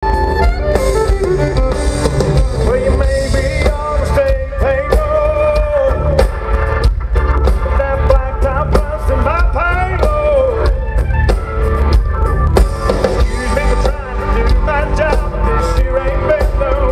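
Live country band playing loudly, with a drum kit, heavy bass and a bending melodic line that may be a voice.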